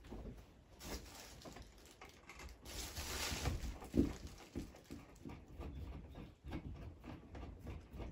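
Handling noise from a ceiling light fitting wrapped in a plastic sheet: rustling and scattered small clicks, with a louder knock about four seconds in, as its fixing screws are tightened with a crosshead screwdriver.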